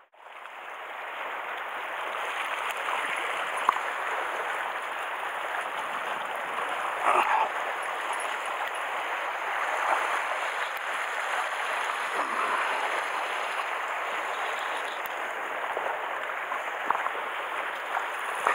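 Sea water washing and sloshing steadily around shoreline rocks, fading in at the start, with a few brief louder splashes.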